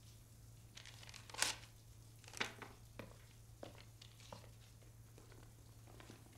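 Paper being handled: two short rustling, tearing bursts, then a few light knocks, over a faint steady low hum.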